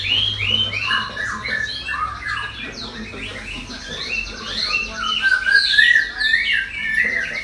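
Several songbirds chirping and twittering at once: quick runs of repeated curved notes, overlapping, with a warbling song joining about five seconds in.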